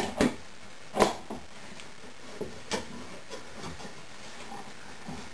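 A few separate knocks and clicks of a one-handed bar clamp being handled and squeezed against a plywood board, the loudest about a second in.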